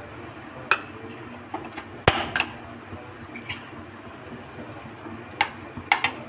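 Steel spoon knocking and clinking against a non-stick kadai while chopped onions are stirred in hot oil, over a steady low sizzle. The clinks come singly every second or so, the loudest about two seconds in, and a quick pair near the end.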